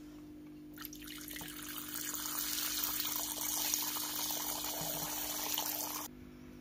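A thin stream of water poured from a bottle's nozzle into a small metal water dish, a steady splashing trickle that starts about a second in and cuts off sharply about six seconds in.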